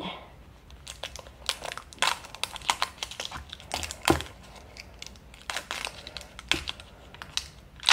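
Blind-bag wrapper being crinkled and torn open by hand: irregular sharp crinkling crackles.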